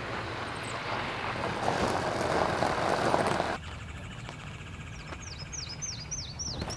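Steady rushing vehicle noise that cuts off abruptly about three and a half seconds in, leaving quieter outdoor background. Near the end a bird sings a quick run of about seven down-slurred high chirps.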